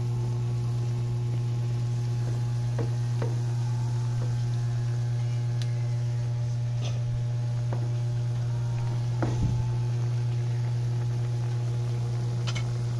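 Loud, steady low electrical hum, with a few faint light clicks scattered through and a small knock about nine seconds in.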